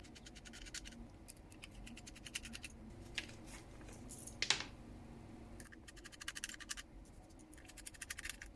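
Small screws being undone from a 2.5-inch laptop hard-disk caddy with a screwdriver: faint, rapid clicking in four short runs of about a second each, with an occasional scrape.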